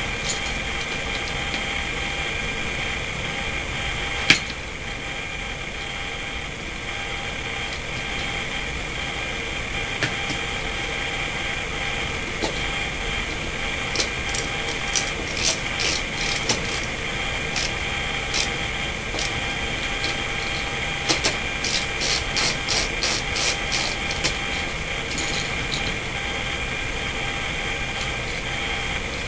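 Small hand tools clicking while wires are connected to an electrical receptacle: one sharp click about four seconds in, then scattered runs of quick clicks in the second half, over a steady background hum.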